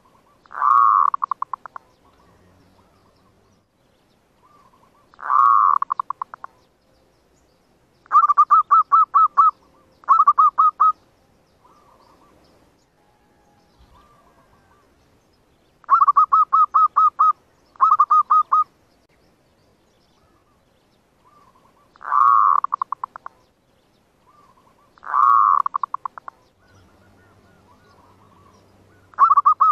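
Zebra dove (perkutut, merbuk) song: about nine phrases of rapid staccato cooing notes, some opening with a louder swelling coo that trails into quick notes, others an even run of quick notes, a few seconds apart.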